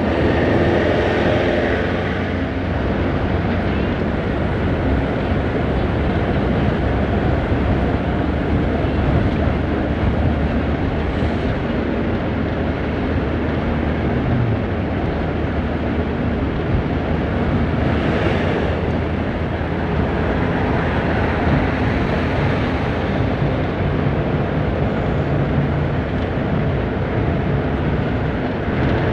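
Isuzu Elf minibus engine and road noise, running steadily while driving, with a brief hiss about eighteen seconds in.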